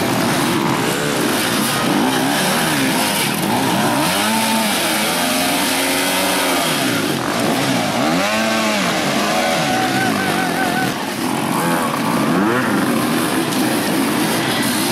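Several enduro dirt-bike engines running at once, revving up and dropping back in repeated rises and falls of pitch as the riders work over the obstacles, over a constant bed of more bikes.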